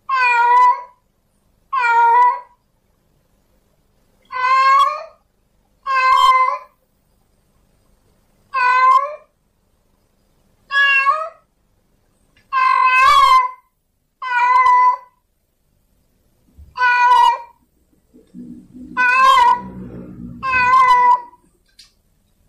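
Male domestic cat in heat giving mating calls: a series of about eleven drawn-out meows, each under a second, spaced one to two seconds apart. A low rumbling noise sounds under the last few calls.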